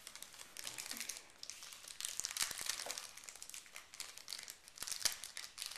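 Football card pack's wrapper crinkling as it is torn open and handled: a steady, irregular run of sharp crackles and rustles.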